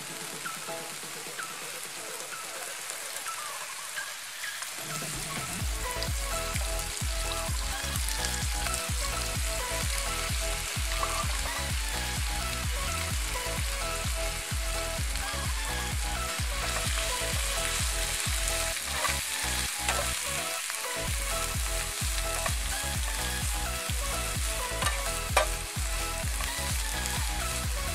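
Sliced ginger, lemongrass and kaffir lime leaves sizzling in hot oil in a nonstick frying pan, stirred and tossed with a metal spatula that scrapes the pan. The frying gets louder about five seconds in.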